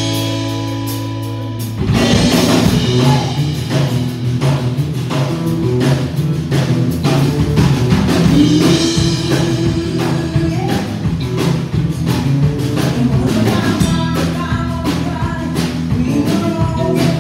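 Live country band playing: a chord rings out for about two seconds, then acoustic guitar, electric bass and drum kit come in with a steady beat, and a woman sings lead into a microphone.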